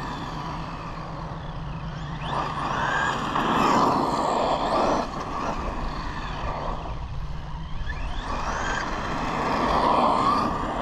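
Maverick Quantum2 Flux RC monster truck running on a road, its brushless electric motor whining up in pitch under throttle over the hiss of the tyres. It makes two full-throttle passes, one a couple of seconds in and another near the end.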